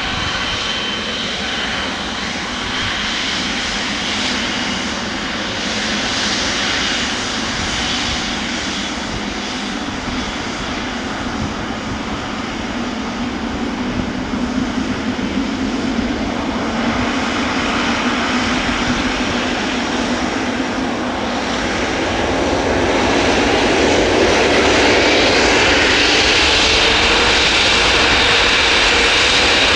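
Jet engines of an Airbus A340-300 airliner running steadily. In the last several seconds they grow louder, with a rising whine.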